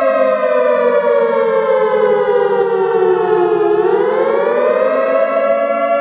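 Civil defense air-raid siren wailing as a nuclear attack alarm. Its pitch slowly falls for about the first three and a half seconds, then rises quickly back to its high note.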